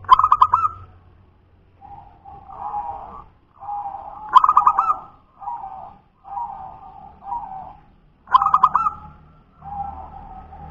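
Zebra dove (perkutut) singing its cooing song: a loud rapid stutter of notes repeated three times, about four seconds apart, with softer cooing notes in between.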